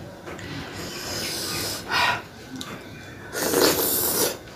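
Mouth slurping and sucking at fish-head meat while eating with the fingers: a short slurp about two seconds in and a longer, louder one near the end.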